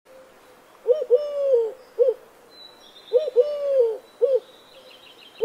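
A dove cooing: a phrase of a short note, a long drawn-out note and a short note, given twice about two seconds apart.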